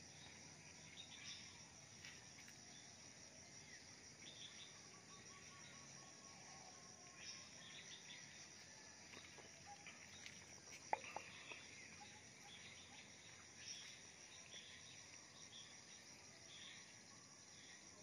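Faint outdoor morning chorus: a steady, high pulsing insect trill with short bird chirps scattered through it, and one sharp click about eleven seconds in.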